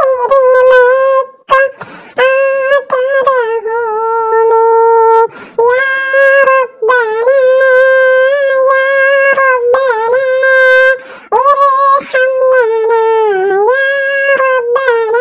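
A single high-pitched voice singing a naat unaccompanied, in long held notes with short breaks between phrases.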